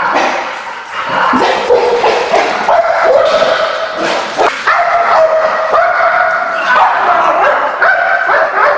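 Protection dog barking and yelping in repeated high-pitched calls as it goes at an intruder coming through a back door.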